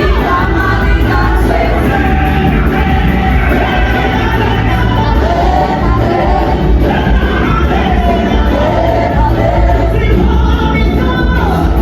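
Music with a group of voices singing over a steady bass, as at a live choir performance.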